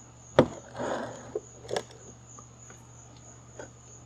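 A sharp knock about half a second in, then a brief rustle and a few light clicks and taps as a power cable and its plug are handled on a tabletop.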